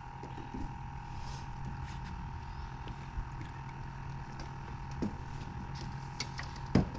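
Steady machine hum with a high, even whine, and a couple of faint knocks near the end.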